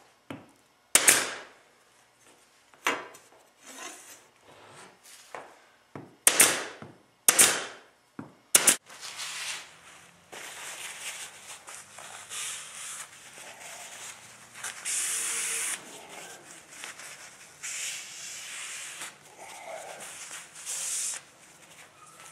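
Several sharp wooden knocks, then about thirteen seconds of continuous rubbing on wood that swells and eases.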